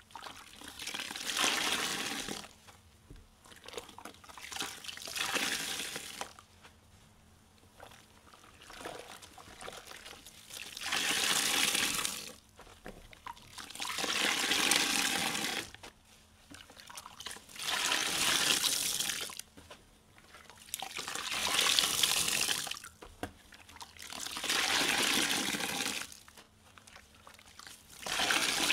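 Soaked car sponge squeezed again and again, water gushing out of it in about eight separate hissing pours, roughly one every three to four seconds, each lasting about two seconds.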